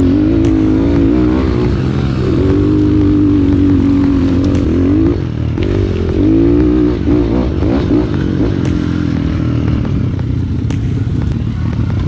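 Pit bike engine running and revving under way off-road, its pitch rising and falling as the throttle opens and eases off, with a brief drop about five seconds in.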